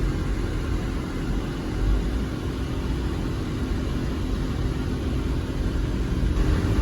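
Steady low rumble of a running vehicle, with a faint even hum.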